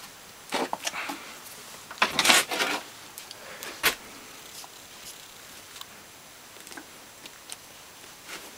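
Handling noise: a cluster of sharp knocks and clicks in the first four seconds, then only a few faint ticks.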